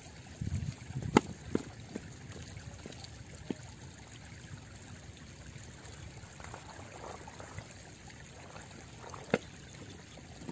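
Shallow river water splashing and trickling as a mesh net bag is handled at the water's edge, with two sharp clicks, one about a second in and one near the end.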